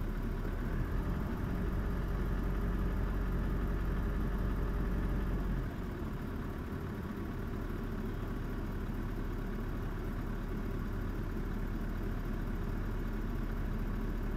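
A vehicle engine idling with a steady low drone, which drops and thins out about six seconds in.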